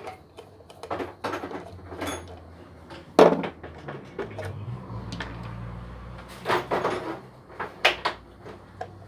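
Scattered knocks and clicks of handling in a workshop, the loudest about three seconds in, with a low hum underneath from about four to seven seconds in.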